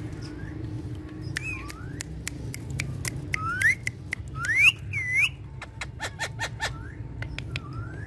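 Alexandrine parakeets giving whistled calls and short squawks that slide up and down in pitch, loudest a few seconds in, mixed with sharp clicks. Near the end comes a quick run of short clicking notes, over a steady low background rumble.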